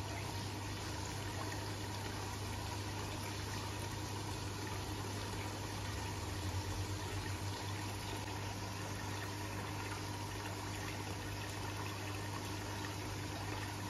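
Aquarium power filter running: a steady electric hum with a constant wash of moving water.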